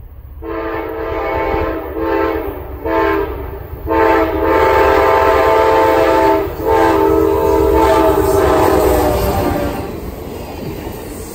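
An approaching Amtrak passenger train's multi-chime locomotive air horn sounds three shorter blasts and then two long ones. Near the end the horn stops and the train passes close by, its wheels rumbling on the rails.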